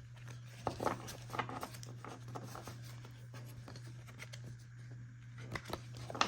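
Light rustling and small clicks of a stack of trading cards being handled and sorted, over a steady low hum.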